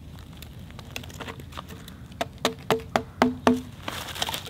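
A small wooden wedge being tapped in against the side of a log to stop it rolling: a run of about nine sharp wooden knocks, three or four a second, each with a short hollow ring, then a brief rustle near the end.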